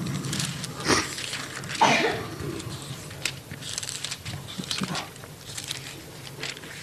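Thin Bible pages rustling and flicking as the book is leafed through close to a microphone, a run of short crisp handling noises with the loudest about two seconds in, over a low steady hum.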